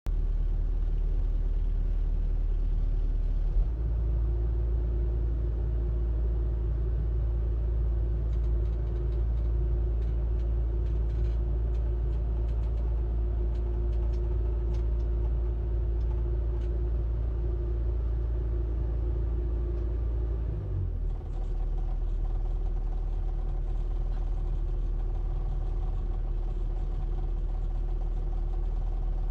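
Heavy diesel engine of an earth-moving machine running steadily. It speeds up about three and a half seconds in, holds at the higher speed, then drops back to a lower speed near twenty-one seconds.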